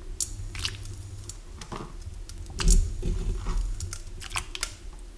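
Boiled chicken feet being dropped back by a gloved hand into a small pot of strained broth: irregular wet squishes and soft plops with scattered light clicks, a little louder about two and three seconds in.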